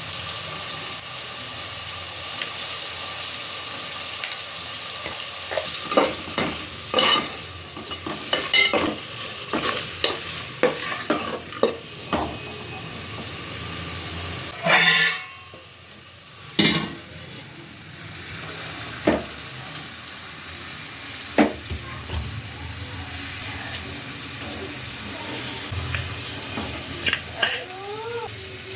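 Food sizzling as it fries in a pan, with a steady hiss. A metal spoon or ladle stirs it, knocking and scraping against the pan again and again, most often in the first half and once loudly about halfway through.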